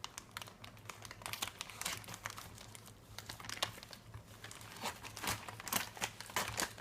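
Cube packaging being opened and handled by hand: irregular rustles and small clicks, busier toward the end.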